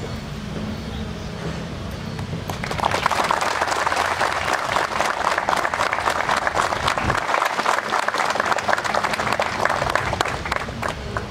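Audience applauding, starting about three seconds in and stopping near the end.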